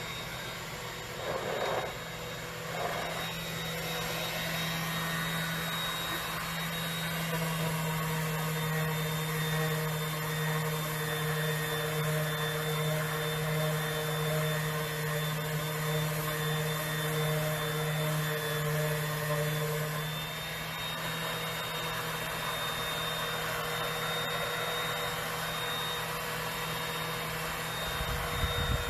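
Electric sander running steadily against cherry wood, a constant motor hum and grinding hiss; the hum weakens a little about twenty seconds in.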